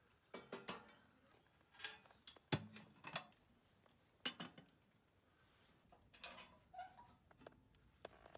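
Kindling sticks clattering into a small stove made from a steel refrigerant gas can, and metal clanks as the lid is shut and a kettle is set on top. It comes as a string of sharp knocks; the loudest, about two and a half seconds in, has a dull thud under it.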